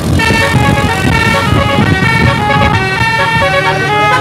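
A bus's telolet musical air horn playing a quick tune of short held notes, stepping up and down in pitch, over a low rumble.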